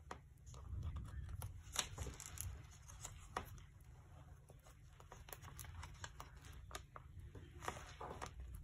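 Paper and card being handled on a work table: irregular rustling and scraping with a few sharp taps, the loudest about two and three and a half seconds in.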